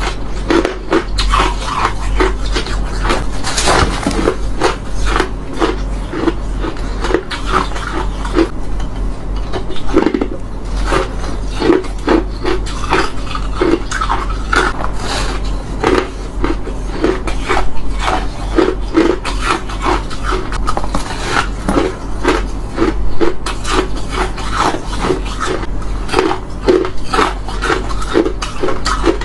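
Crunching of crushed ice being bitten and chewed close to the microphone, one sharp crunch after another.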